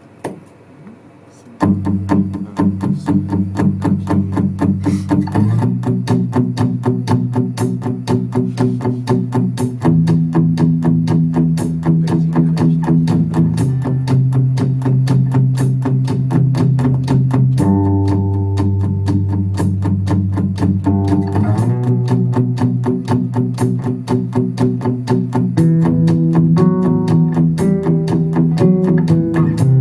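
Instrumental intro of an acoustic folk-pop song played live: strummed acoustic guitar comes in suddenly about a second and a half in, in a steady rhythm, over bass notes that change every few seconds. Higher picked melody notes join in over it about two-thirds of the way through.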